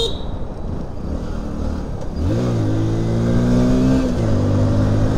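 Motorcycle engine revving: its pitch rises about two seconds in and holds steady, then drops slightly near four seconds, over a steady rumble.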